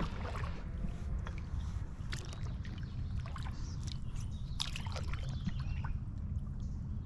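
Water lapping and dripping around a small kayak, with small splashes and clicks scattered through, over a steady low rumble.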